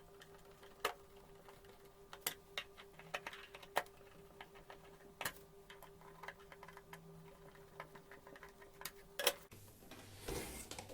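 Scattered faint clicks and taps of small plastic and metal parts being handled and fitted together while an induction cooktop is reassembled, at uneven intervals, over a faint steady hum that stops near the end.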